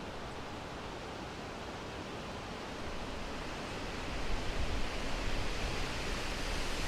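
Wind blowing through a summer forest, a steady rushing that gusts louder about four seconds in, with a deeper rumble.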